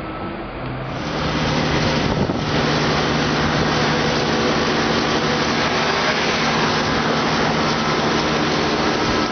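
Loud, steady vehicle roar with several steady hum tones underneath, swelling about a second in.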